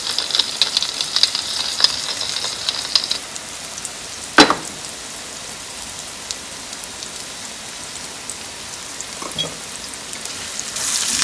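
Red onions sizzling and crackling in olive oil in a stainless steel skillet, louder for the first three seconds and then settling to a quieter steady sizzle. A single sharp knock sounds about four seconds in.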